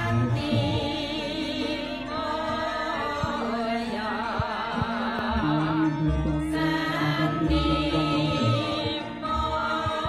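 Javanese ceremonial wedding music: a singer holds long, wavering notes over low, steady instrumental tones.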